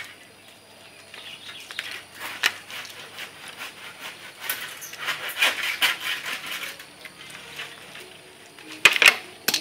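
Leafy tree branches rustling and crackling in short, irregular bursts as they are pushed and handled, with two sharp knocks near the end.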